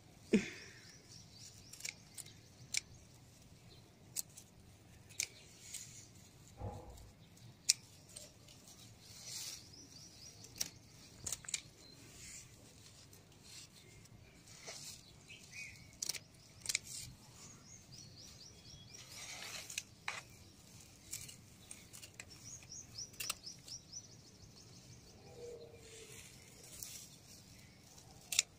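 Scissors snipping through mint stems: irregular sharp clicks as the blades close, with birds chirping in runs of quick high notes.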